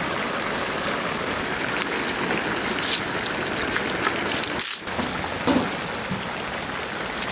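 Fish curry boiling in a large flat steel pan over a wood fire: a steady bubbling sizzle, with a few sharper pops.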